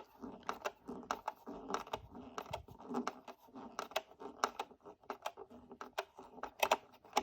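Screws being unscrewed to free a 1/18 scale diecast model car from its display base: a quick, irregular run of small clicks and scrapes, several a second, as the screwdriver turns and the screws and parts are handled.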